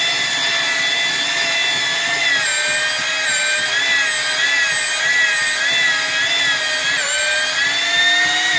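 Electric drill-mixer with a paddle whirring steadily at full speed, mixing tile-adhesive mortar in a bucket, its pitch wavering slightly as the paddle meets the thick mix. It winds down, falling in pitch, at the very end.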